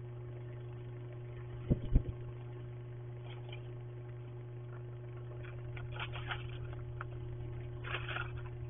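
Steady electrical hum from a security camera's microphone, with two sharp knocks close together about two seconds in and short bursts of crunching and scraping later on.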